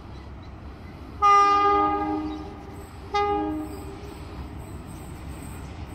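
Air horn of diesel locomotive Alco 4490 sounding two blasts of a multi-tone chord as the train approaches: a long blast about a second in, then a shorter one about two seconds later, over a low rumble.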